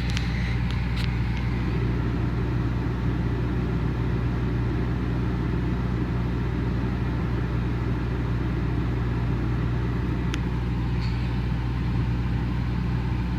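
An engine running steadily at a constant speed, a low even drone, with a few faint light ticks near the start and about ten seconds in.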